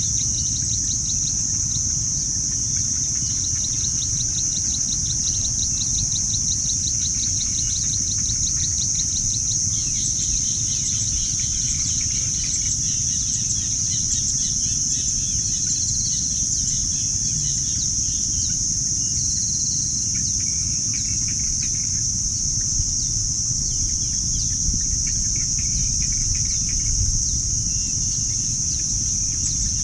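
Steady high-pitched insect chorus with scattered bird chirps over it. A fast run of ticks sounds during the first ten seconds or so, and a low rumble runs underneath.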